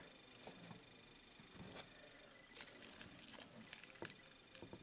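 Faint crinkling and crackling of a thin green plastic strip being handled and folded over a fly hook by the fingers, mostly as a cluster of small crackles in the second half.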